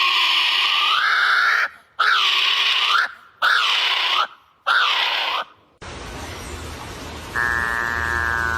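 Four loud, drawn-out animal calls, each dipping and rising in pitch, with short gaps between them. Then a steady hiss, with a rapid buzzing trill starting about a second and a half later.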